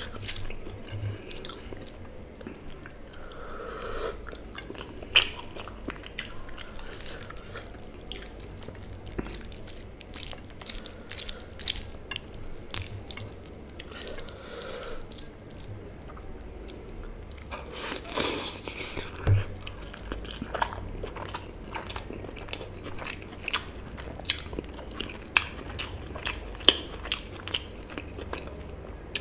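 Close-miked eating: a person chewing mutton curry and rice, with many sharp wet mouth clicks and smacks, and a louder, longer mouth sound about 18 seconds in.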